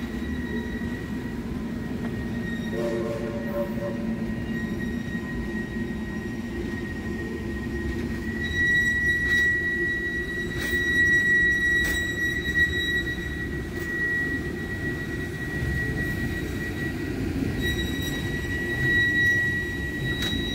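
Wheels of a passenger train led by Southern 2-8-2 Mikado steam locomotive 4501 squealing on the curve of a wye as the train moves, a steady high-pitched squeal over a low rumble. The squeal grows louder from about eight seconds in, with a few sharp clicks along the way.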